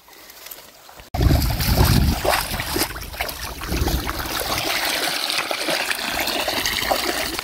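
A mesh scoop net is swept through shallow muddy paddy water and lifted out, starting with a heavy slosh about a second in. Then comes a steady run of water pouring and trickling out through the mesh.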